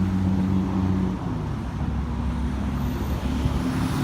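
Motor vehicle engine running, a steady low hum whose pitch steps up slightly about a second in and again near the end.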